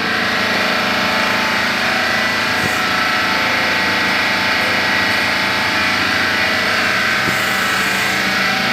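CNC foam cutting machine running steadily, a continuous mechanical whine over a motor hum.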